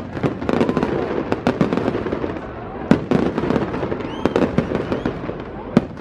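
Aerial fireworks shells bursting: a string of sharp bangs, the loudest about three seconds in and near the end, with crackling in between.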